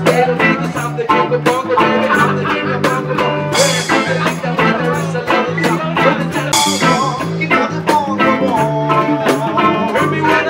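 Live reggae fusion band playing: nylon-string acoustic guitar and electric guitars over a low bass line and a steady drum beat, with cymbal crashes about three and a half and six and a half seconds in.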